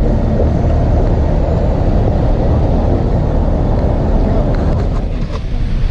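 City street traffic noise: cars passing on the road as a steady low rumble that eases slightly about five seconds in.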